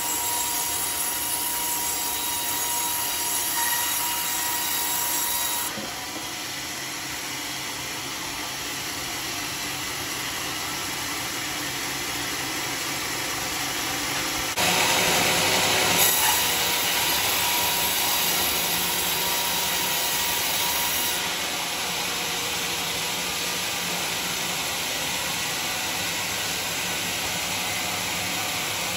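Homemade band sawmill running, its band blade sawing through a teak log with a steady whining hiss. The noise jumps louder about halfway through and eases back a few seconds later.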